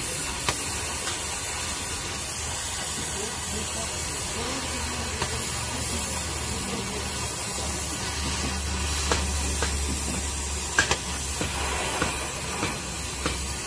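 Gas-cutting torch hissing steadily as its flame cuts out a broken leaf-spring centre bolt seized in a truck's axle housing. A low hum comes in about halfway, and a few sharp clicks sound near the end.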